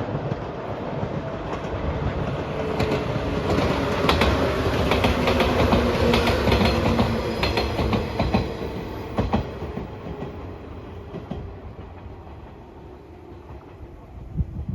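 A train passing close by, its wheels clacking over the rail joints. The sound builds to a peak around the middle, then fades as the train moves away.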